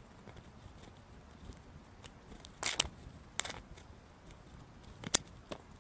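Footsteps crunching on dry leaves, twigs and loose dirt, with a few sharper crunches in the second half and faint crackling between.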